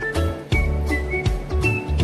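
Background music with a steady drum beat, a bass line and a high whistled melody.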